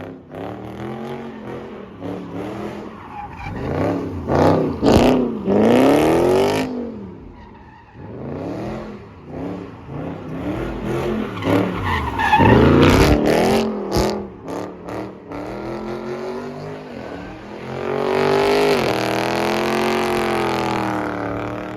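Supercharged V8 of a Dodge Hellcat being driven hard: the engine note climbs in repeated pulls, each dropping away, then holds high and loud for a few seconds near the end.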